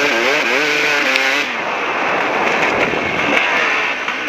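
KTM 380 two-stroke dirt bike engine revving up and down on the throttle, then easing off about a second and a half in, when a steady rushing noise takes over and the engine note sinks low.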